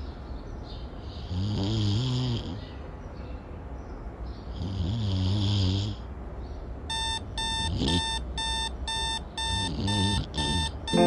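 A person snoring in slow, drawn-out breaths. About seven seconds in, an electronic alarm clock starts beeping, about two beeps a second, while the snoring goes on underneath.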